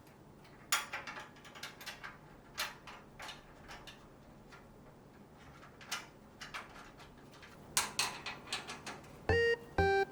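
Scattered light clicks and knocks, irregular and of varying strength, as of hard parts being handled. Near the end, background music with keyboard notes begins.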